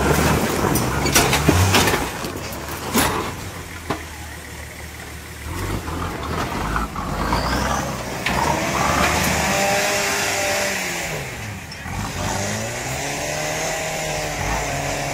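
Off-road 4x4's engine revving hard under load as it climbs out of a deep rut, with a few sharp knocks in the first four seconds, then revs rising and falling again and again.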